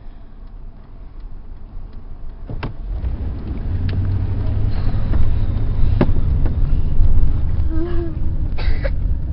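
Car engine and road rumble heard from inside the cabin, building up from about two and a half seconds in as the car gets going. A few sharp knocks cut through it.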